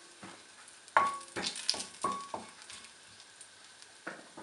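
Whole spices (bay leaves, cinnamon and cardamom) sizzling softly in hot oil in a wok. A utensil stirs them, scraping and knocking against the pan in a quick run of about five strokes a second in, and once more near the end; some strokes ring briefly.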